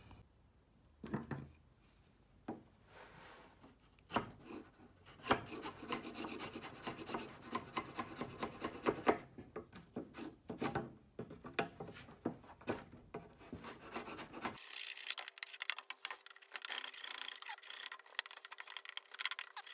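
Wood chisel scraping and paring pine inside a notch cut in a board: a run of short, irregular scraping strokes starting about four seconds in, clearing wood so the board fits without cracking.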